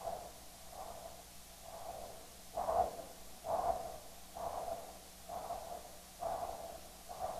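Spectral Doppler audio from an ultrasound scanner sampling a peripheral prostatic artery: a soft pulsing whoosh with each heartbeat, about one every 0.9 s. The flow signal is that of a vessel judged normal, not a new tumour vessel.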